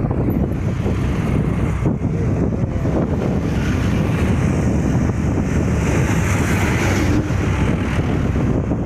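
Steady wind rushing over the microphone, mixed with vehicle engine and road noise, while riding along a road.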